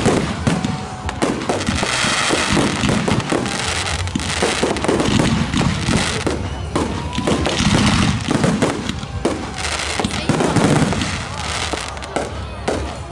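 Fireworks display finale: rapid, overlapping shell bursts going off in a dense barrage, with booms over continuous crackling.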